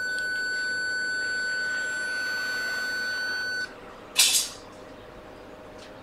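Short-killer unit giving a steady high-pitched beep for about three and a half seconds while it pushes current into the shorted line on an iPhone XR logic board, then cutting off. About half a second later comes one brief, loud hissing snap.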